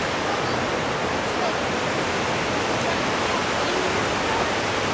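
Steady rush of a waterfall cascading down a rocky canyon, an even, unbroken sound of falling water.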